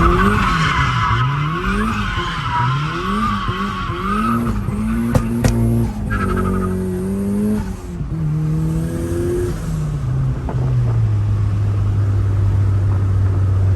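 Mazda Miata being drifted: the four-cylinder engine revs up and down repeatedly while the tires squeal for the first four or five seconds, with a shorter squeal about six seconds in. The revs then fall away and the engine settles to a steady idle near the end.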